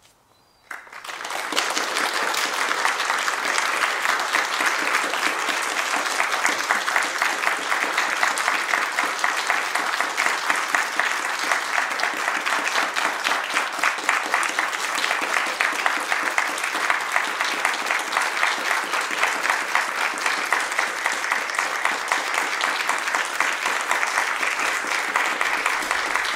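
A small audience applauding: after a moment of near silence the clapping starts about a second in, swells quickly and carries on steadily.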